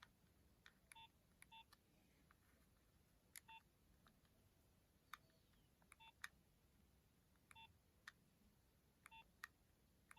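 Nokia 2600 mobile phone keypad being pressed: faint, irregular key clicks, about seven of them with a short single-pitch key beep, as the phone's menus are stepped through.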